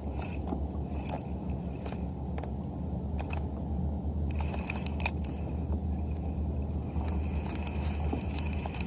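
Steady low wind and water rumble on a kayak-mounted camera microphone, with scattered light clicks and ticks throughout.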